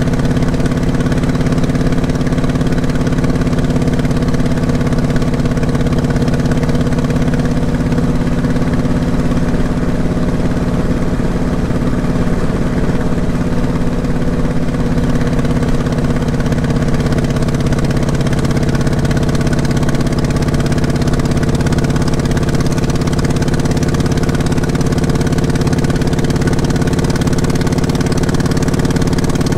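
Motorcycle engine running at a steady, even pace while the bike is ridden.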